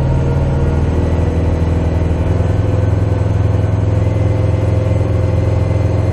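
Kubota BX25D's three-cylinder diesel engine running steadily at raised throttle, brought up to about 540 PTO rpm to drive the rear three-point snow blower. Its low hum shifts slightly about a second in, then holds steady.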